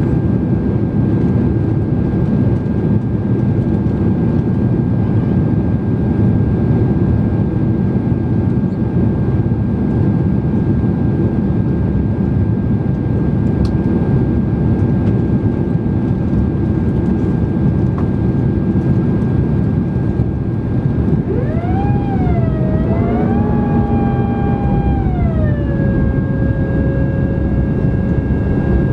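Steady cabin roar of a Boeing 767-300 in its climb, engine and airflow noise heard from a window seat over the wing, with a thin high tone held throughout. About two-thirds of the way through, a whine with several tones rises, dips, rises again, then drops and settles into a steady tone.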